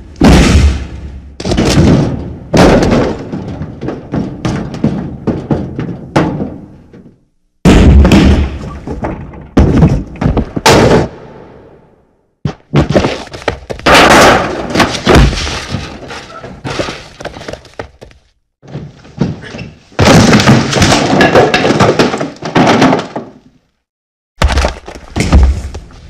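A run of cinematic fight sound effects: sudden punch, thud and smash impacts, some with crashing, breaking sounds trailing off. They come in several clusters of rapid hits separated by brief pauses.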